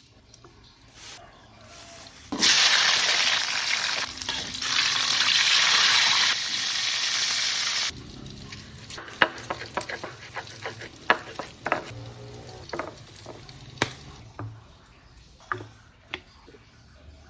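Food hitting hot oil in a pan sizzles loudly for about five seconds, then cuts off suddenly. After that a spatula clinks and scrapes against the pan as the food is stirred.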